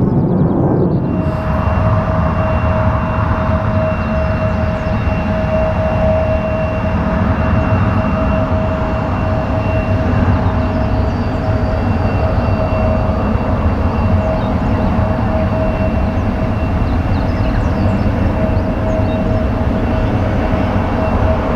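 Jet engines of a Boeing 737-800 running, a loud steady rumble with a hiss and a steady whine that set in about a second in and hold without rising or falling.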